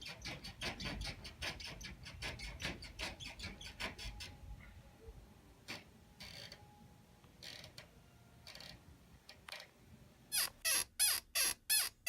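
Rapid, rhythmic squeaking and creaking of bedsprings from the flat upstairs, heard through the ceiling, about five squeaks a second. It stops about four seconds in, leaving a few scattered creaks. Near the end, louder squeaks falling in pitch start up in a steady beat.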